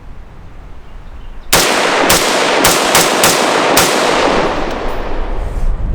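AR-15 semi-automatic rifle fired close by: about six quick shots, a third to half a second apart, starting about a second and a half in, each followed by a long rolling echo that fades after the last shot.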